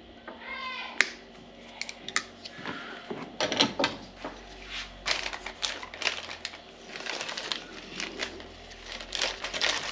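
Heat-shrink tubing being cut with wire cutters and handled: scattered sharp clicks and snips with a light plastic rustle between them.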